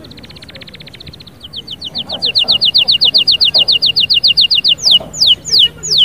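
A caged songbird singing in repeated phrases: a fast fine trill, then a run of rapid short notes, about eight a second, growing louder, then, about five seconds in, slower whistles that each fall steeply in pitch, two or three a second.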